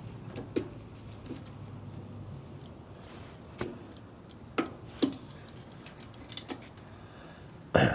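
Scattered light metal clicks and clinks of hand tools and the bike's drive chain as the chain is loosened, with one louder clank near the end.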